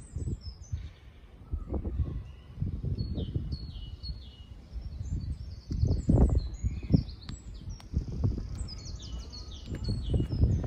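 Songbirds singing in the surrounding trees: repeated short phrases of quick high notes, several times over. Underneath is a low, irregular rumbling with bumps, loudest about six seconds in.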